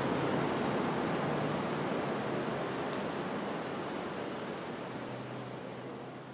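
City street ambience: a steady wash of traffic noise with a faint low hum, fading out gradually.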